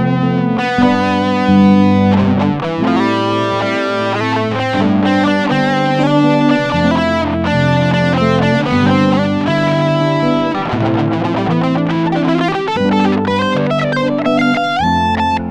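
Background instrumental music led by an electric guitar, playing a steady melody over low bass notes.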